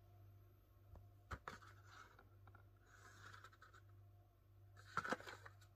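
Faint handling of a cardboard Nespresso capsule sleeve. There is a light tap about a second in, then soft rubbing and sliding as it is picked up and turned, and a louder couple of knocks near the end.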